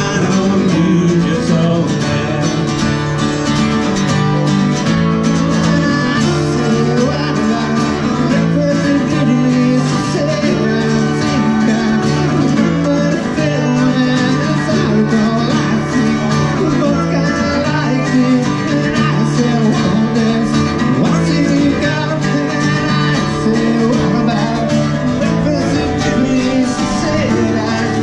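Music led by acoustic guitar, with plucked and strummed notes.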